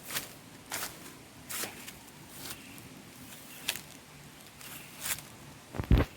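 Footsteps outdoors, a short scuffing step roughly every second. Two loud, deep thumps come near the end.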